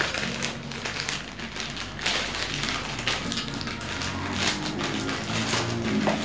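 Plastic courier mailer bag crinkling and rustling in irregular crackles as it is pulled and torn open by hand.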